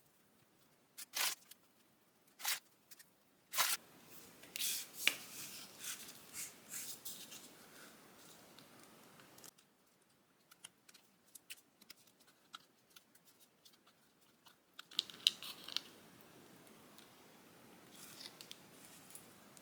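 Hand crafting noises at a worktable: three sharp clicks, then two stretches of rustling, scraping or cutting-like handling sound with scattered small clicks, separated by a quieter pause.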